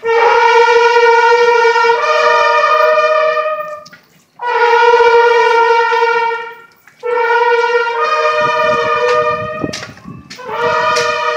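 Brass horns playing long held notes in harmony, in four phrases of two to four seconds each with short breaks between them. A few sharp hits sound under the notes near the end.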